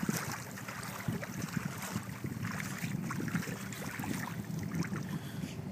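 Wind buffeting the microphone, with a boat's outboard motor running steadily in the distance.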